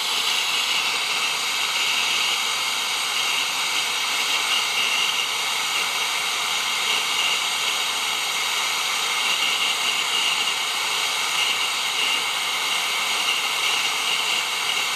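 Brazing torch flame hissing steadily while a copper refrigerant joint on the new evaporator coil is heated.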